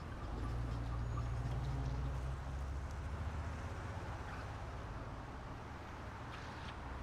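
Suburban street ambience: a car passes, its low rumble swelling about half a second in and slowly fading, over faint bird chirps.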